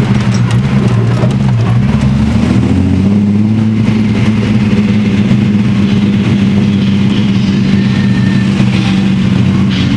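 Datsun 240Z rally car's straight-six engine running under way at low speed, heard from inside the cabin. Its note changes about three seconds in, then holds steady.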